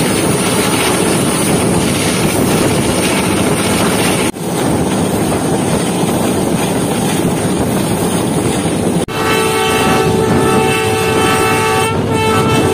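Steady running noise of an express passenger train at speed. About nine seconds in, a locomotive's multi-tone horn sounds steadily for about three seconds, breaks briefly, then sounds again for a moment.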